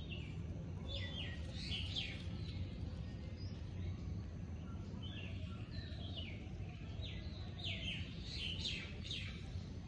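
Birds chirping: quick, high notes falling in pitch, repeated in short clusters every second or so, over a low steady hum.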